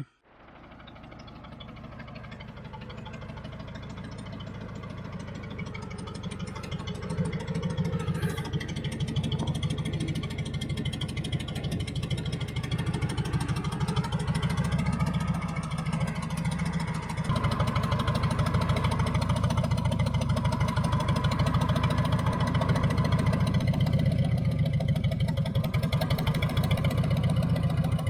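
John Deere 410 backhoe's engine running under changing load, fading in at the start and getting louder about seventeen seconds in.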